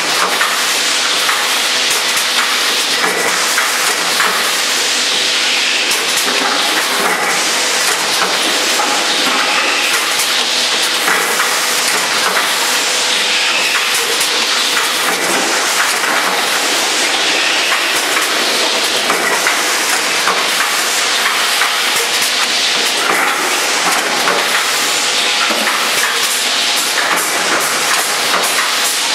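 Makum four-lane shot glass filling machine running: a loud, steady hiss-like din full of rapid mechanical clicks and clatter.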